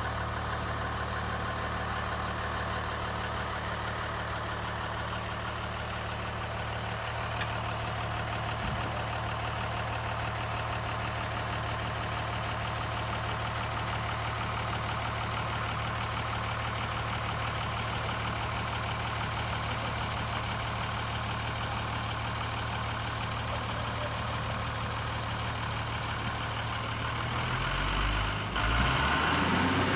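A steady engine-like hum, even in level, which changes and grows slightly louder near the end.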